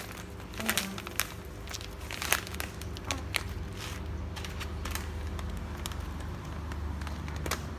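Handling of a plastic bird-food packet: scattered crinkles and sharp clicks in the first half, over a steady low hum.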